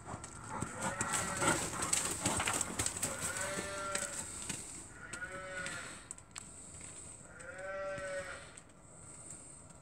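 Farm livestock calling about five times, short calls that rise and fall, every second or two, with the loudest near the end. Rustling noise sits over the first few seconds.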